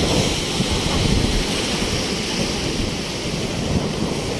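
Heavy surf breaking and hissing, with wind buffeting the microphone.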